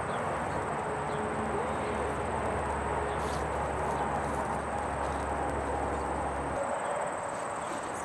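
Steady outdoor garden ambience with a faint, high, continuous insect drone, likely crickets. A low rumble underneath cuts off about two-thirds of the way through.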